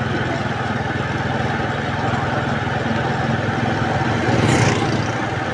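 An engine running steadily, with a brief louder noisy surge about four and a half seconds in.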